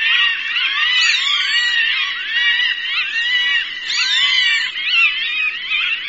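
Hawk cries played as a bird-scaring sound: many short, shrill, rising-and-falling calls overlapping in a dense, unbroken chorus.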